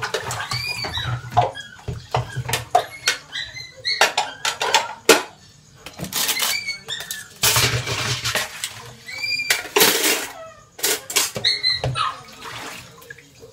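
Washing dishes at a sink: plates, bowls and utensils clinking and clattering, with bursts of running, splashing water in the middle. There are several short high squeaks throughout.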